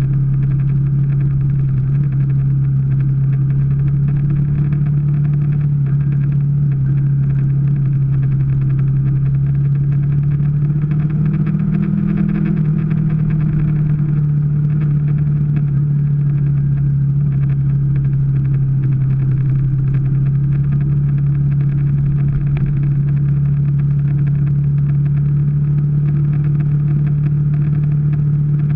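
Small Kawasaki Ninja parallel-twin motorcycle engine running at a steady cruising speed, heard from a camera mounted on the bike; its note rises briefly a little less than halfway through, then settles back.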